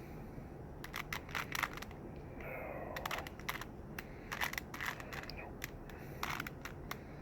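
Plastic Rubik's cube being twisted quickly by hand: irregular bursts of sharp clicks and rattles as the layers turn.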